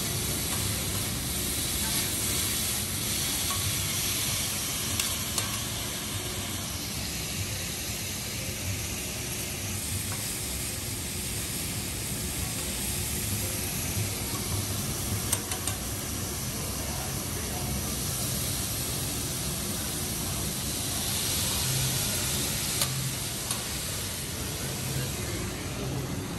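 Food sizzling on a hot steel teppanyaki griddle, a steady hiss, while metal spatulas scrape and clink against the cooking plate a few times.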